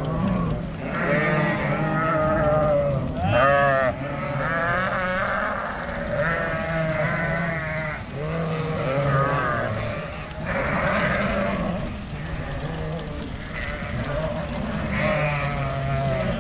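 A large flock of black-faced sheep bleating, many wavering bleats overlapping one after another. A loud, close bleat stands out about three and a half seconds in.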